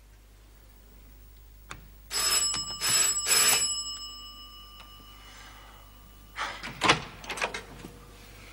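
Electric doorbell ringing in three short bursts about two seconds in, its metallic tone dying away afterwards. A few seconds later come sharp clicks and knocks as the door latch is worked and the door is opened.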